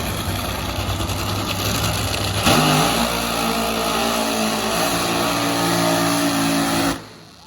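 Drag racing car's engine at full throttle. A sudden loud burst comes about two and a half seconds in, then a steady high-revving engine tone that cuts off abruptly near the end.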